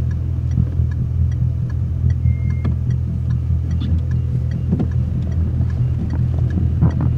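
Car driving, heard from inside the cabin: a steady low rumble of engine and road noise, with faint small ticks and rattles.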